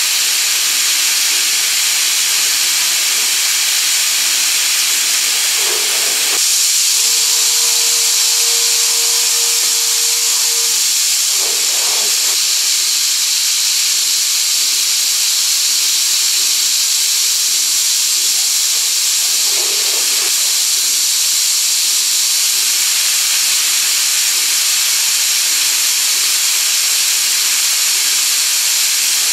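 Loud, steady hiss of coolant spraying inside the enclosure of a Brother Speedio M300X3 5-axis machining center while it mills a part. A steady pitched tone sounds from about seven to ten seconds in, and there are a few short, dull sounds.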